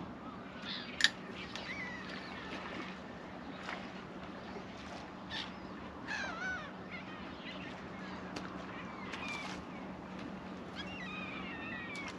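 Seabirds calling again and again as they work a shoal of baitfish around the boat, with a sharp click about a second in and a steady low hum underneath.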